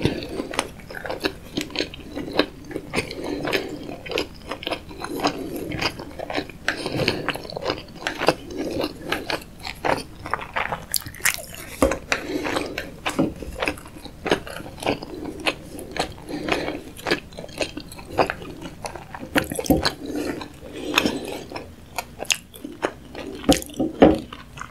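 Close-miked chewing of sushi: soft, wet mouth sounds with rapid sticky clicks throughout.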